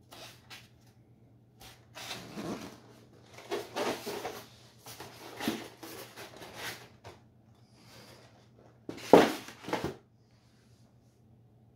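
White polystyrene foam packaging trays being handled, slid and set down on the floor: a run of rubbing and scraping noises, with the loudest bump about nine seconds in as a tray is put down.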